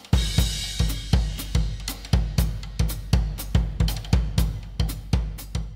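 Intro music built on a fast drum-kit beat: a heavy kick drum about three times a second with hi-hat and cymbal ticks. It starts suddenly and stops just before the end.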